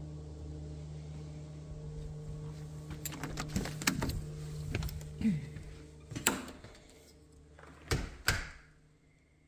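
A door knob turning and its latch clicking as an exterior door is opened, with a scatter of clicks and knocks, then two loud knocks near the end as the door is shut. A steady low hum is heard until the door closes, and then it gives way to quiet room tone.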